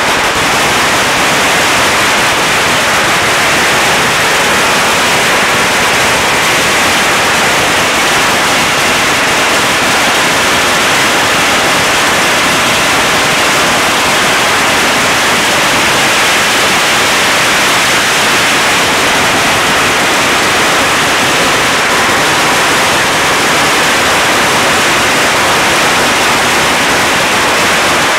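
A 100,000-shot string of Chinese firecrackers going off nonstop, the bangs so rapid and dense that they merge into one continuous, loud crackling noise with no let-up.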